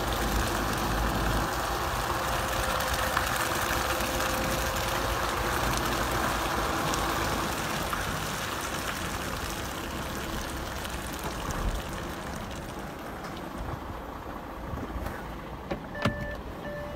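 Heavy truck's diesel engine running under a steady rushing noise, easing off somewhat in the second half. About a second before the end a reversing beeper starts sounding regular beeps.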